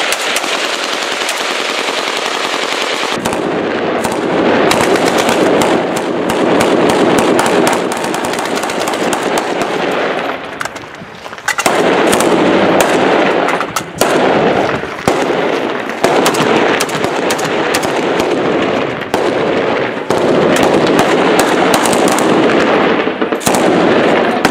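Sustained automatic gunfire from Kalashnikov-type assault rifles and belt-fed machine guns, in long bursts with almost no pause. There is a brief lull about ten or eleven seconds in.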